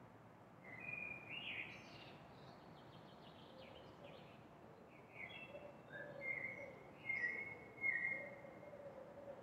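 A songbird singing in short chirping phrases, one brief burst about a second in and a longer string of phrases from about five seconds in, over a steady hum of distant city noise.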